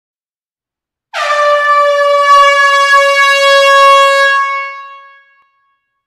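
A jet horn sound effect: one long horn blast at a steady pitch, starting about a second in, held for about three seconds and then fading away.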